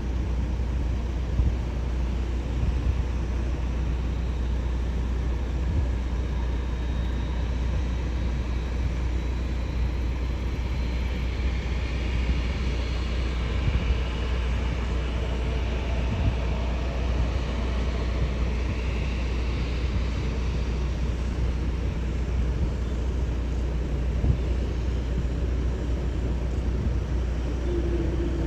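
Jet airliner passing, its engine whine building and then fading around the middle, over a steady low rumble.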